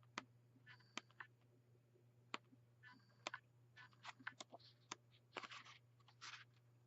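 Very faint handling of a patterned paper pad as its pages are leafed through: scattered light clicks and a couple of short paper rustles near the end, over a steady low hum.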